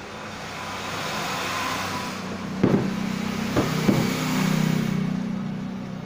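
A motor vehicle going by: a rushing noise swells over the first couple of seconds, then a low engine hum holds through the second half, with a few knocks around the middle.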